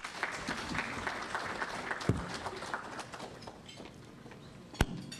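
Audience applauding, dying away after about three seconds, with two knocks, one about two seconds in and one near the end.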